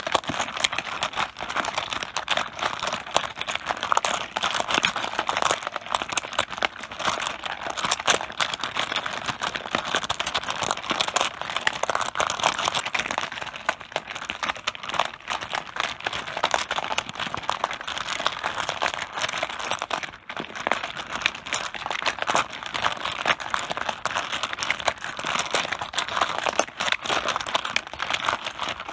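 Mahjong tiles clattering on a tabletop: a dense, continuous run of small clicks and knocks, with a brief lull about twenty seconds in.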